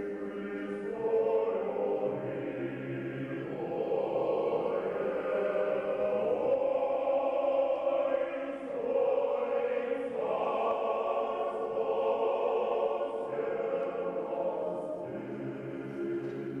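Recorded music with sustained choir-like voices holding long chords, which shift every few seconds and swell louder about a second in.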